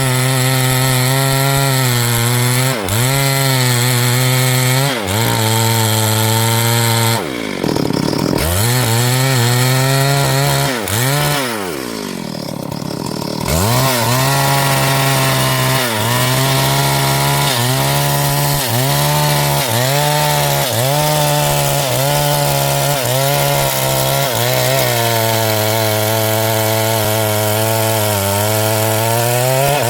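Small two-stroke chainsaw running at high revs while cutting into wood, its engine pitch dipping briefly under load every second or two. Twice in the first half it falls off throttle and revs back up before settling into a long steady cut.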